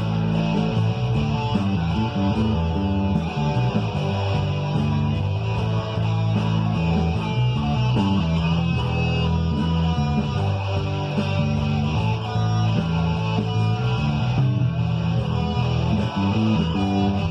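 Electric guitar played over a rock backing track with bass and a steady drum beat.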